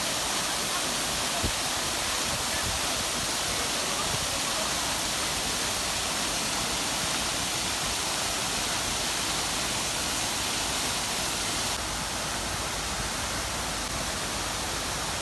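Steady rushing of water pouring down an artificial waterfall into a pond, a little quieter from about twelve seconds in.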